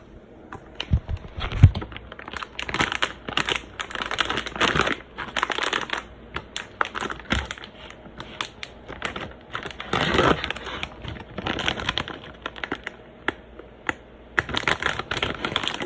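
Frozen veggie-wing packaging being handled and opened: irregular crinkling and rustling with scattered clicks and taps, and a sharp knock about a second and a half in.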